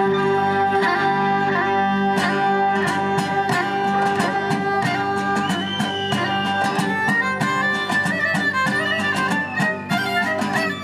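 Instrumental string music: a bowed fiddle melody over steadily plucked strings, with held notes underneath.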